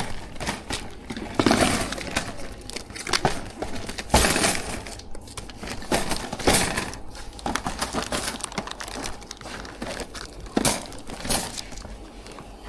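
Irregular crinkling of packaging with scattered sharp knocks, from goods being handled.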